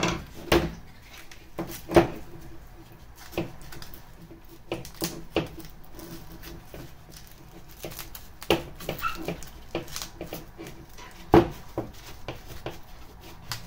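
Scattered handling knocks and clicks as a metal fuel rail and its fiberglass heat-shield blanket are worked by hand on a wooden table, with sharp knocks about two seconds in and again near eleven seconds.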